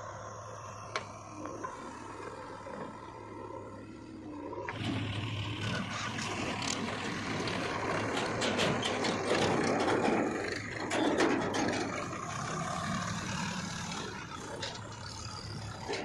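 Diesel engines of a Sonalika tractor and a JCB backhoe loader running. About five seconds in the sound grows louder as the tractor pulls away towing a trolley loaded with soil, with clicks and rattles over the engine.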